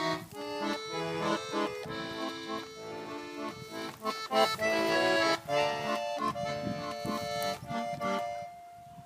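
Bayan (Russian button accordion) playing a run of short chords, then holding one long note that fades away near the end.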